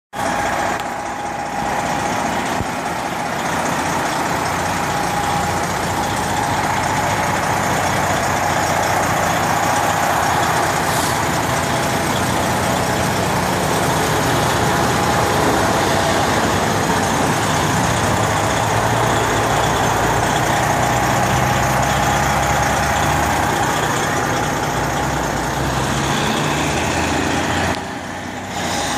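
Freightliner diesel semi-truck engine idling steadily, heard up close, with a steady whine above the engine noise.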